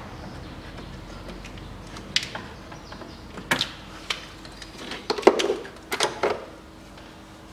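A series of short, sharp clicks and knocks from hands working plastic clips and a wiring connector in a car's engine bay, loudest about five seconds in, over a faint steady hum.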